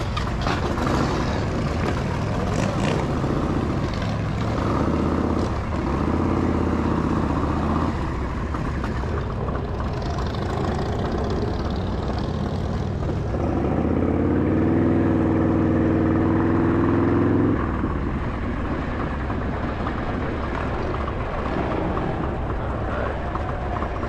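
Motorcycle engine idling, revved up and held twice: briefly about five seconds in, then louder from about fourteen seconds until it drops back to idle near eighteen seconds.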